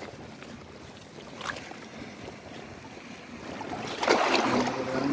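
Shallow water sloshing and splashing around a wading fisherman's legs, quiet at first with one small splash, then louder about four seconds in as the water is churned.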